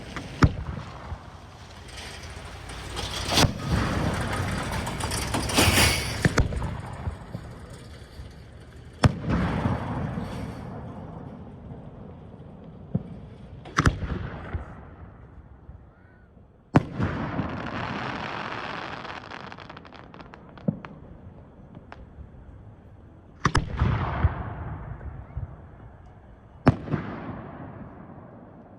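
Fireworks going off: sharp bangs of bursting shells every few seconds, each trailing off in a rolling echo. Two stretches of dense crackling come in, one about five seconds in and one around seventeen seconds in.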